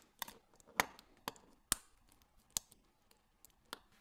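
Cartier Roadster's stainless-steel bracelet and folding clasp being handled and closed: a series of sharp metallic clicks and clinks, about seven in four seconds.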